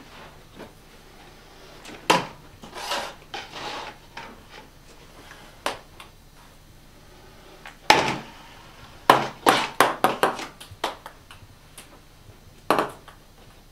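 Ping-pong balls hitting plastic cups and the beer pong table: sharp separate clicks and taps, with a quick run of taps between about nine and eleven seconds in.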